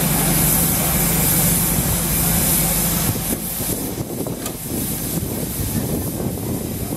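Steam tank locomotive 75 1118 standing with steam hissing loudly, together with a steady low hum. The hiss and hum cut off about three seconds in, leaving a softer, uneven rumble.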